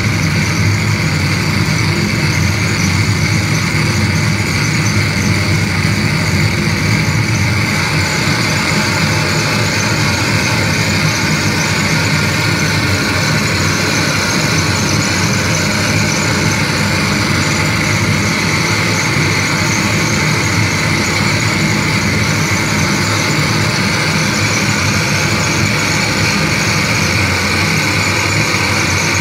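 Loud, unbroken wall of harsh electronic noise from a live noise performance on a chain of effects pedals through amplifiers: a dense low rumble under a steady hiss, barely changing throughout.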